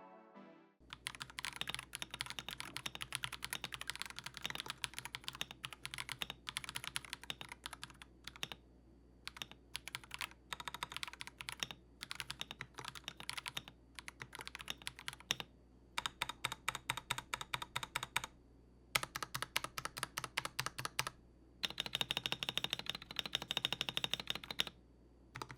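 Typing on an AKKO 5075B Plus V2 mechanical keyboard: rapid key clacks in bursts of a second or a few seconds, separated by short pauses.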